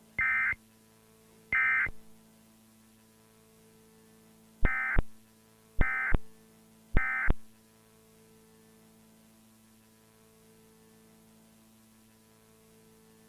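Emergency Alert System SAME digital data tones: two short bursts near the start, then three more about a second apart, the three end-of-message bursts that close an EAS test alert. A faint steady hum lies between them.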